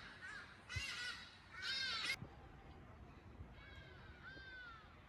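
A bird calling with harsh, crow-like caws: two loud calls, about a second in and about two seconds in, then a few fainter calls around four seconds in.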